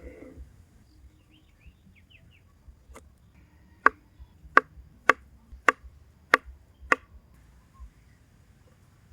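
A series of sharp knocks: one faint, then six loud ones evenly spaced a little over half a second apart, stopping after about seven seconds. A few faint bird chirps come just before them.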